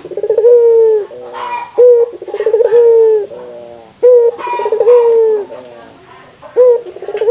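Puter (collared) doves cooing over and over, about one call a second, several calls breaking into a rapid rolling stutter.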